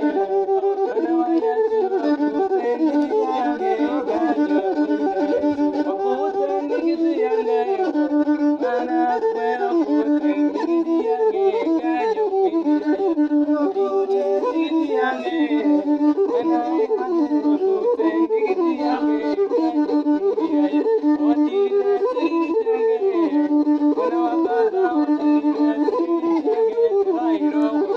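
An endingidi, the Ugandan one-string tube fiddle, being bowed. It plays a short melody that steps between a few notes and repeats again and again.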